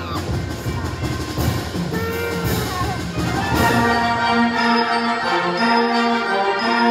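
Band music with brass to the fore, trumpets and trombones playing, turning into louder, fuller held chords about halfway through.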